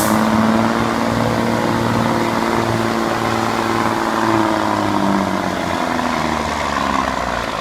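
1982 Ford L9000 semi's diesel engine running hard under load, pulling the weight sled down the track. The engine note holds steady, then sags slightly lower and quieter near the end.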